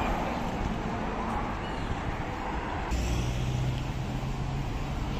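Night street ambience with road traffic going by. The sound changes abruptly about three seconds in, and a low steady engine hum then runs for about two seconds.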